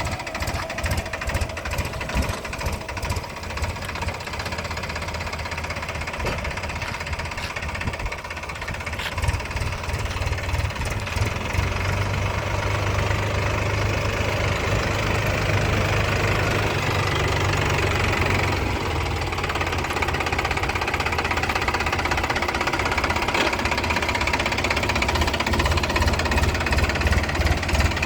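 Heavy diesel engine running with a fast knocking pulse; it grows louder and steadier about ten seconds in.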